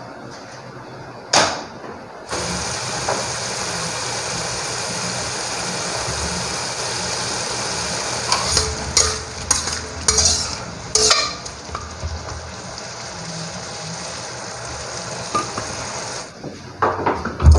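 Green beans and carrot strips sizzling in a metal wok, with a single sharp knock just before the sizzling begins about two seconds in. Midway through, a spatula scrapes and clanks against the wok several times as the beans are stirred; the sizzling stops shortly before the end.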